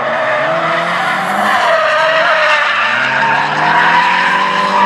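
Nissan S13 drift car's engine revving as it drifts, its pitch rising and falling, with the tyres screeching over it.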